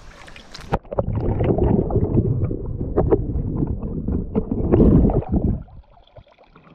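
Muffled underwater rush of river current and bubbles heard through an action camera's waterproof housing, with scattered clicks. It starts about a second in as the camera goes under, and drops away abruptly about a second before the end as the camera comes back out of the water.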